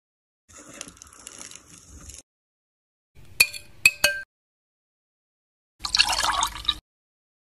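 A metal spoon clinks three times against a drinking glass while stirring liquid in it. Near the end the liquid is poured from the glass into a steel bowl of milk, a brief pouring splash of about a second.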